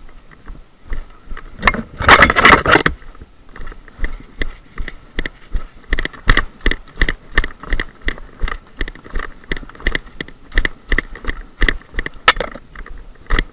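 Footsteps on a muddy woodland path, about three a second, with loose kit rattling at each step, after a loud scuffle about two seconds in.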